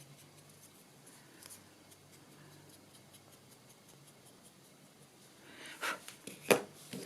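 Makeup sponge being rubbed and dabbed with Distress ink around the edges of an MDF tag, very faint at first. Near the end come a few louder scuffing strokes and one sharp tap.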